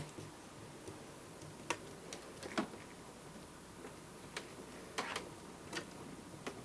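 Scattered small, sharp clicks and taps of a very small screwdriver working tiny screws in a laptop's plastic screen housing, with a loud click at the very start and about six lighter ones at uneven intervals.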